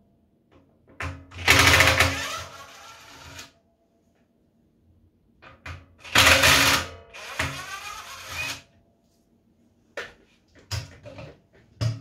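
Cordless drill-driver driving screws into a vacuum's plastic motor head: two runs of about two to three seconds each, the motor's pitch sliding as the trigger and load change. A few short knocks follow near the end.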